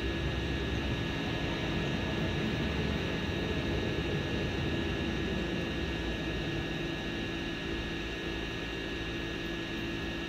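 Camera drone's rotors running steadily in flight: a constant hum with a high whine over a hiss.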